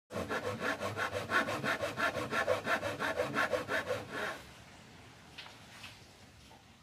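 Small hand saw cutting through the trunk of a kimeng (Ficus microcarpa) bonsai in quick, even back-and-forth strokes, about six a second, stopping about four seconds in as the trunk is cut through. A couple of faint clicks follow.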